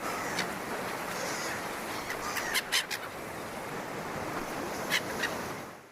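Outdoor ambience: a few short bird calls over a steady hiss-like background, fading out near the end.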